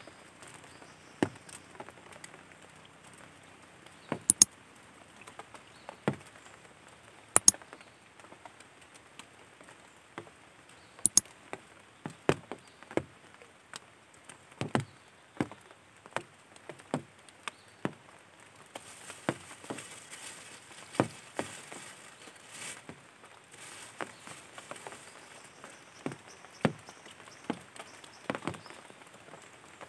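Scattered light clicks and taps at irregular intervals over a faint background hush.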